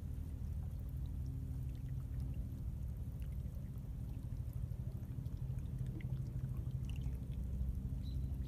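Seawater running through a narrow channel between rocks on a rocky shore, a low, steady water sound. A brief high chirp comes near the end.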